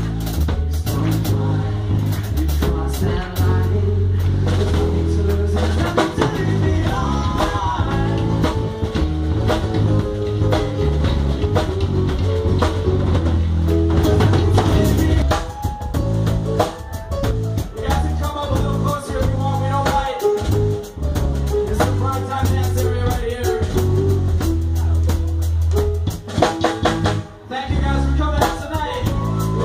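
Live band playing: drum kit, electric bass and keyboard, with a lead vocalist singing into a microphone over them. A heavy bass line runs under steady drum hits, and the bass drops out briefly about halfway through and again near the end.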